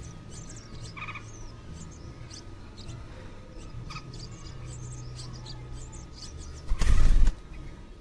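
Red-whiskered bulbul nestlings giving thin, high begging cheeps, with two short calls about one and four seconds in. About seven seconds in comes a loud rushing burst of about half a second as the adult bulbul flies at the camera, its wings buffeting the microphone.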